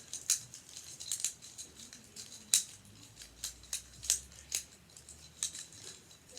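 Plastic infinity cube fidget being flipped and folded in the hands, giving irregular sharp clicks, roughly one or two a second, the loudest about two and a half seconds in.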